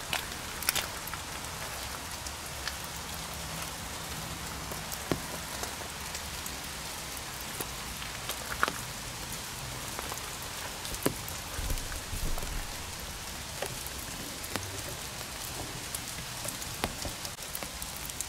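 Rain pattering steadily on an open umbrella overhead, with now and then a louder single drop striking it.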